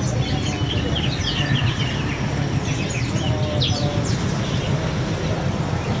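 Many caged songbirds chirping at once, a scatter of short quick notes, many falling in pitch, over a steady low rumble.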